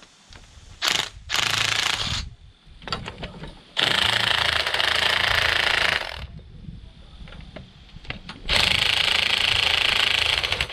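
Impact wrench hammering in four bursts, two short ones and then two of about two seconds each, running down the screws of a coil spring compressor to compress a front coil spring.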